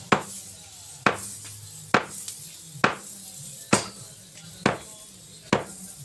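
Sharp, evenly spaced knocks about once a second, seven in a row, as the spearhead is driven onto its smoking wooden shaft.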